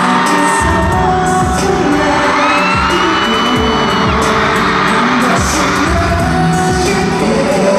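Live pop song played over a concert hall's sound system: a singing voice over a heavy drum beat, with screaming and cheering from the audience.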